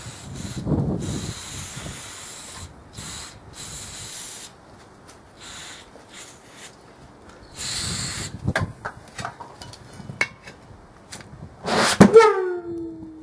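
Aerosol can sprayed in several hissing bursts into the gap between tyre bead and wheel rim, then a sharp bang about twelve seconds in followed by a ringing tone that falls in pitch.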